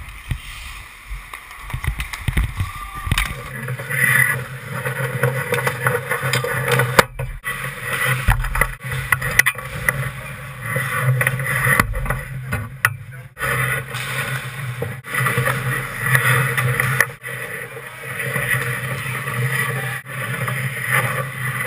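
Ice hockey play on an indoor rink: skate blades scraping and carving the ice and sticks working the puck, over a steady low hum. The sound drops out briefly a few times.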